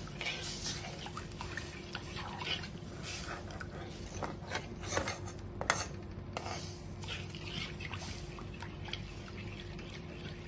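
A spoon stirring milk into roasted gram flour in a pan, with irregular liquid sloshing and scraping against the pan, over a steady low hum. The stirring is continuous to keep lumps from forming.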